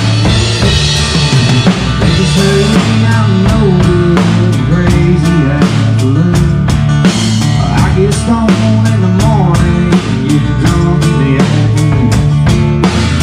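Live band playing an instrumental passage with a drum kit keeping a steady beat, bass guitar notes underneath and bending lead lines above.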